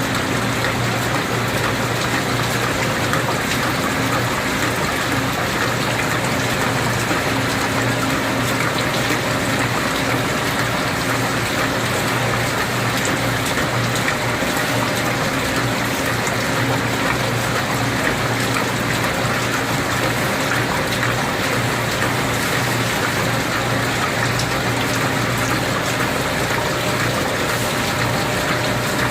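CNC gear shaping machine running steadily, with a constant hum and the even rush of liquid coolant flowing over the cut.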